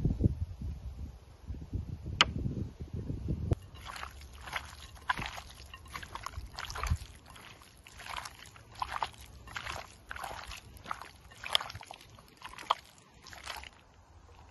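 Hand squishing raw chicken wings through a wet marinade in a glass bowl: short squelches repeating about once or twice a second from about four seconds in. Before that, low rumbling and a single sharp click about two seconds in.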